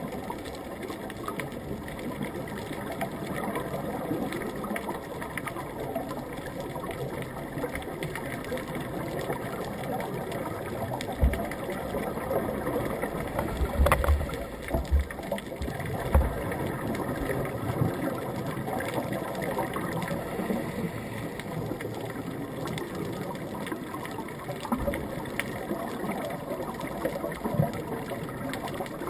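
Muffled underwater sound picked up through a waterproof camera housing: a steady droning hum with faint steady tones in it. A few short low bumps come about a third and halfway in.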